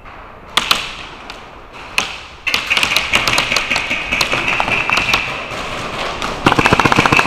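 Airsoft BB guns firing: a few single shots in the first two seconds, then from about two and a half seconds in a long run of rapid full-auto fire with a steady high whine underneath, and a fast, even burst near the end.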